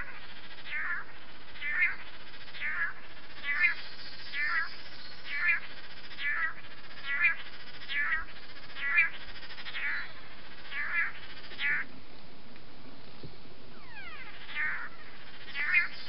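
Long-tailed manakins calling during their courtship dance display: short calls repeated in a steady rhythm about once a second, pausing for a few seconds near the end, over a constant hiss.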